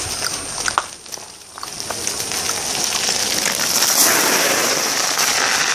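Steady crackling hiss of bicycle tyres rolling on a tarmac lane, dipping briefly about a second in and then building again, with a few sharp clicks.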